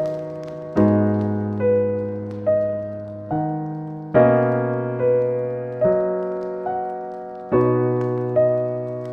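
Slow, calm solo piano music, with notes and chords struck about once a second and left to ring out. Faint crackling from a fireplace fire sits underneath.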